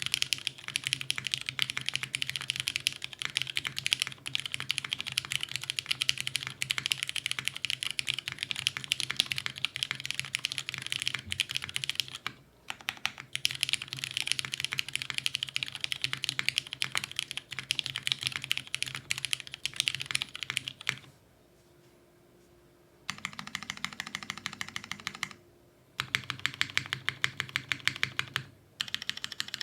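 Fast, continuous typing on a Merisi Sessantacinque custom mechanical keyboard with lubed Cherry MX Brown Hyperglide tactile switches on an undampened POM plate and GMK keycaps. It has a brief pause about twelve seconds in and a two-second stop about twenty-one seconds in, after which the typing resumes in shorter runs.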